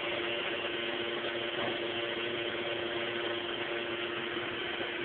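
A steady mechanical hum: one constant tone over an even hiss, unchanging throughout.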